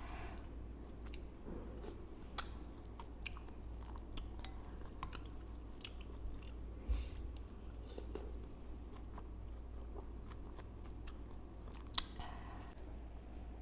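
Close-miked chewing of bakso meatballs with crunchy bone bits: wet mouth sounds and many short sharp clicks and crunches at irregular intervals, with one louder click near the end.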